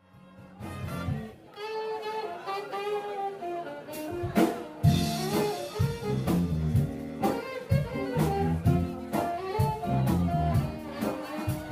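Big band jazz music, with saxophones and brass over a drum kit. It comes in softly after a brief gap and fills out about four seconds in.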